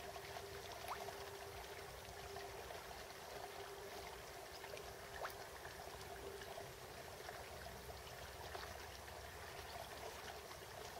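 Faint, steady trickling and running water on a pond, with a few small scattered ticks.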